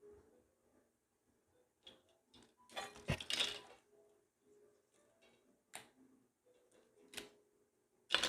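Small hard parts and tools clicking and clinking as a steering column is taken apart by hand. A burst of clatter comes about three seconds in, and single sharp clicks follow a few times.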